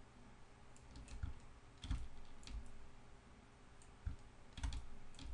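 Faint clicks of a computer mouse and keyboard, about half a dozen separate taps at irregular spacing.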